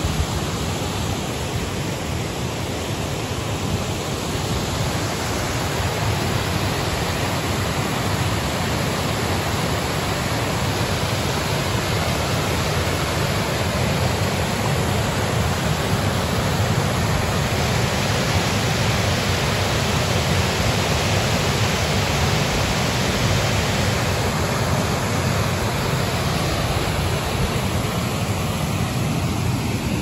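River rapids: white water rushing steadily over rocks and pouring over a low weir.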